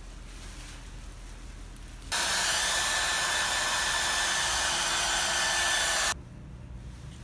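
Hair dryer blowing, a loud steady rush of air with a faint steady tone in it, switched on about two seconds in and cut off abruptly about four seconds later.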